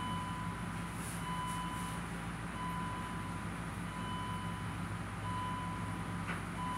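Range Rover engine idling through a new custom exhaust, a steady low drone, while an electronic warning chime beeps on and off about every second and a half.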